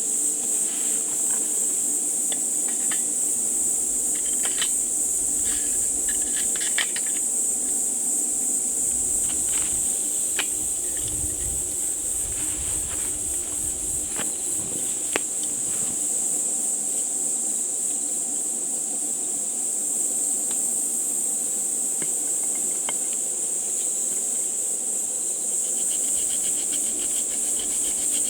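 A steady, high-pitched chorus of insects, with scattered light clicks and taps over it, most of them in the first third.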